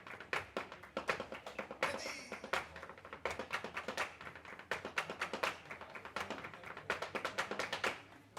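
Flamenco percussion: a rapid, irregular run of sharp taps and claps, several a second, with little or no guitar or singing.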